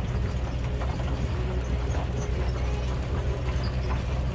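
An open-sided sightseeing shuttle running steadily, heard from on board as a steady low hum.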